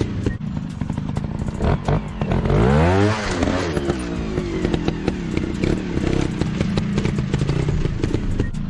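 Dirt bike engine running, revving up sharply about two and a half seconds in and dropping back within about a second and a half, with scattered clicks and clatter throughout.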